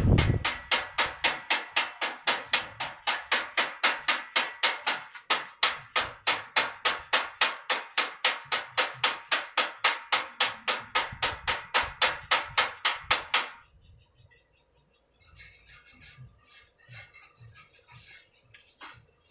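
Tobacco-shredding machine's blade making fast, even cutting strokes, about four a second, that stop suddenly about two-thirds of the way through. After that come faint, scattered scraping sounds.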